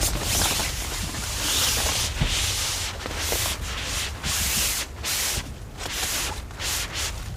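Strong wind gusting, buffeting the microphone with a heavy rumble, with bursts of rustling hiss that rise and drop every second or so.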